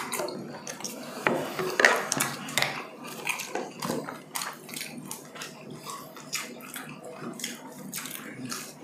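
Dishes and utensils clinking and tapping as food is handled on plates during a meal: a steady run of sharp little clicks and taps, several a second.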